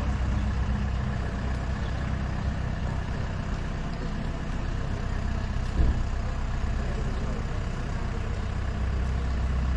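Steady low hum of a running vehicle engine, with a single knock about six seconds in.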